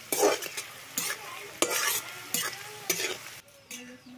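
Sliced onions sizzling in hot oil in a wok while a metal spatula stirs and scrapes them, five quick strokes. About three and a half seconds in, the frying sound cuts off and it goes much quieter.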